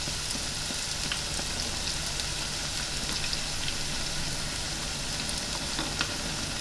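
A battered fish fillet deep-frying in hot oil at about 170 °C in an electric deep fat fryer, just after being lowered in. The oil makes a steady sizzle scattered with small crackles and pops.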